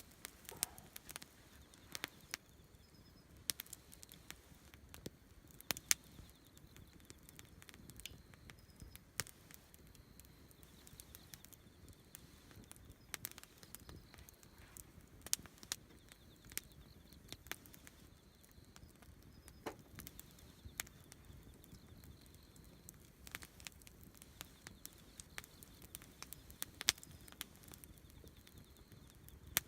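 Wood campfire crackling: irregular sharp pops and snaps, a few of them louder, over a quiet background.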